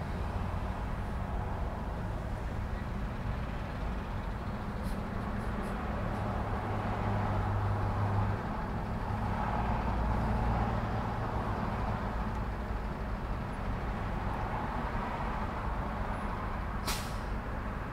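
Traffic at a busy intersection: a steady low rumble of car and truck engines and tyres, swelling twice in the middle as vehicles go by, with one brief sharp hiss near the end.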